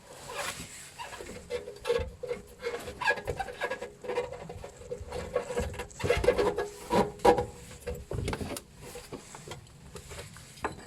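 Irregular clicks, scrapes and short squeaks of hands fitting a fan motor and its blanking plug into the housing of a ventilation unit, with a few sharper knocks.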